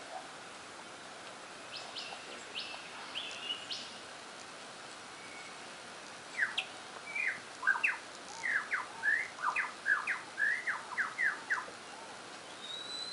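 Superb lyrebird singing through a laptop's speakers: a few faint high notes, then from about six seconds in a rapid run of loud, sharp whistled notes sliding up and down, three or four a second. A high drawn-out whistle comes near the end.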